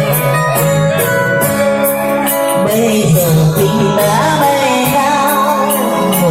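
Background music with a steady beat: a Vietnamese pop song.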